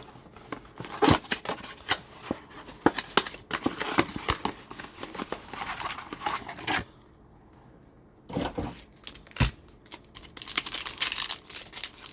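Wrapping of a football trading-card blaster box being torn open and crinkled, with sharp tearing and crackling, and a short pause about seven seconds in.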